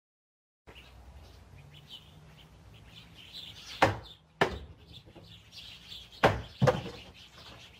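Four sharp knocks in two pairs, about two seconds apart: a balance board (a plank on a round roller) tipping and striking the paving as a man rocks on it. Birds chirp faintly in the background.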